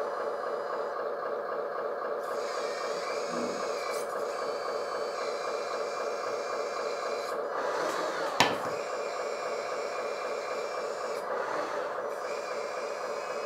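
Hydraulic pump of a LESU RC roll-off dump truck running with a steady whine while the container is tipped, and one sharp wooden clack a little past eight seconds in as a wooden beam drops off onto the floor.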